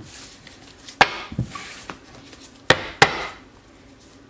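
A deck of tarot cards being handled and shuffled: three sharp taps, about a second in and twice close together near three seconds, each followed by a brief rustle of cards sliding.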